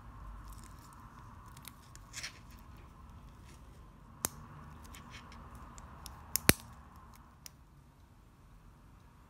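Small metallic clicks and taps from a stainless steel watch bracelet clasp and its spring bars as they are refitted with a spring bar tool. Two sharp clicks stand out, one about four seconds in and a louder one about six and a half seconds in.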